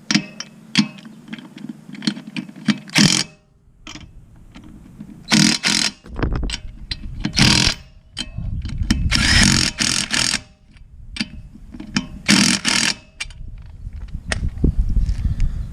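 Bauer 20V Hypermax 1/2-inch cordless impact wrench hammering lug nuts tight on a car wheel, in about five short bursts of half a second to a second and a half with pauses between. It has more torque and power tightening than it had taking the nuts off.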